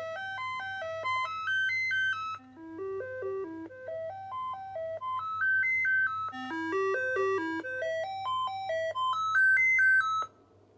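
Commodore 64 Dead Test cartridge sound test played by the original MOS 6581 SID chip: runs of short electronic beep notes step up the scale and back down, in several passes, then stop suddenly near the end. Underneath runs a steady low hum, a little background noise that the owner hears from the original SID and not from the ARMSID replacement.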